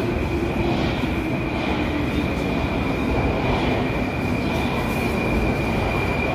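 An Ezh-3 Moscow metro train standing in the station with its doors open: its equipment gives a steady high whine over a low, even rumble.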